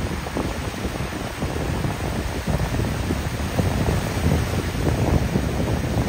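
Ocean surf breaking and washing on the beach, with wind buffeting the microphone in an uneven low rumble.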